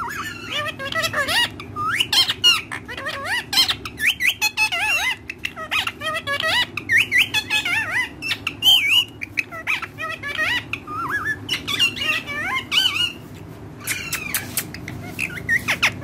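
Indian ringneck parakeets giving rapid, warbling chattering calls and squawks, near-continuous with a short lull about thirteen seconds in.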